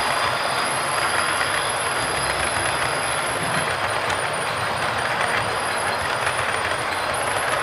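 OO gauge model coaches rolling along the track, a steady rumble and rattle of small metal wheels on the rails.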